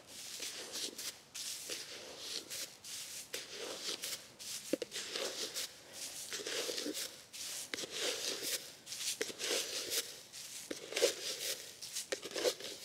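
Irregular rustling and scuffing of someone walking on grass and scattering powdered pasture lime by hand from a scoop: a run of short scrapes, rustles and light knocks.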